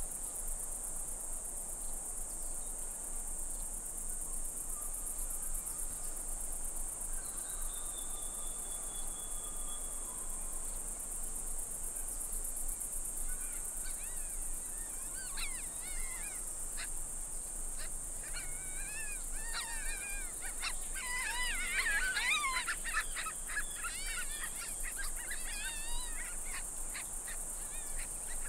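A steady high-pitched insect chorus, like crickets trilling, with birds chirping and singing from about halfway through, busiest about three-quarters of the way in.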